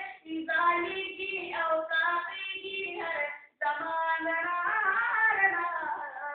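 A boy singing a naat, the Islamic devotional poem in praise of the Prophet, solo and without instruments, in long held phrases with a brief breath about three and a half seconds in.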